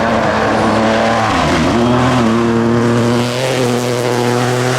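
Turbocharged rally car engine running hard at high revs, with tyre and gravel noise underneath. The revs dip briefly about a second and a half in, then climb back and hold high.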